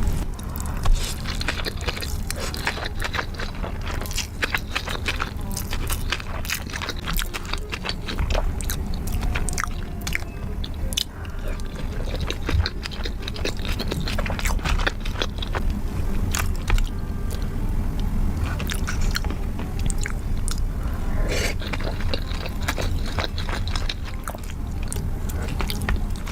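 Close-miked eating: continual chewing and biting with many small crisp clicks and crunches.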